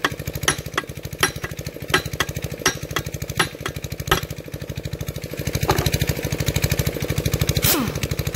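Workshop air compressor running flat out with a rapid, even pulsing beat. Sharp clicks come about every 0.7 s for the first four seconds.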